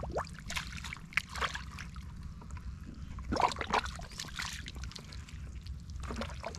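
Wet mud squelching and sucking around rubber boots, with water sloshing, as a person wades knee-deep through a tidal mudflat. It comes in irregular bursts with each step, over a steady low rumble.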